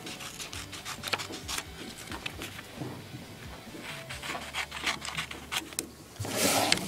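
Scissors snipping through a sheet of wallpaper in quick, irregular cuts, with the paper rustling. A louder rustle of the paper comes about six seconds in.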